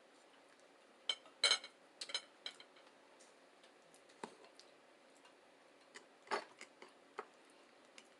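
Eating sounds: a scattering of sharp clicks and taps, loudest in a quick cluster about a second and a half in and again around six seconds in.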